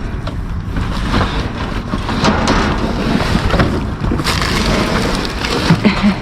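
Wind rumbling on the microphone, with scattered rustles and knocks throughout.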